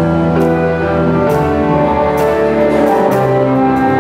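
A live rock band playing: sustained keyboard notes over electric guitars, bass guitar and drums, with a cymbal struck about once a second.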